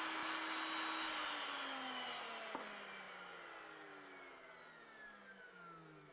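A power tool's motor spinning down after being switched off: a steady whine for about a second, then falling steadily in pitch and fading away.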